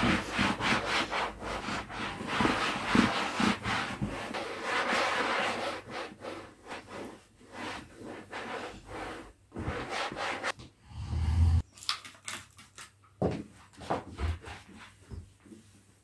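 Microfiber cloth rubbing over leatherette bench upholstery and a table edge in quick back-and-forth wiping strokes. The strokes are dense at first and become sparser and quieter after about five seconds.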